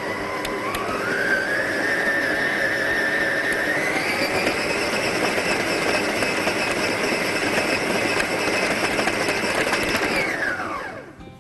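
Electric stand mixer motor whining as its beater works biscuit dough. The pitch steps up twice as the speed is raised, then falls away about ten seconds in as the mixer is switched off and winds down.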